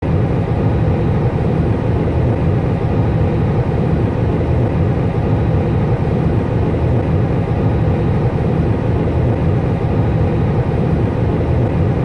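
Steady cockpit noise of an Airbus A320 taxiing: a dense, even low rumble from the idling engines and the airframe rolling, with no change in pitch or level.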